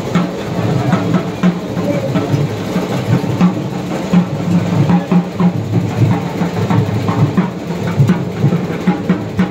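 Drums beating with many sharp strokes, over the voices of a crowd.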